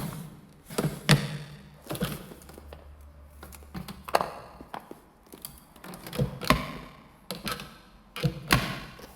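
A string of irregular knocks and thunks, about a dozen over nine seconds, some with a short ring after them: household things being handled and set down in a small room.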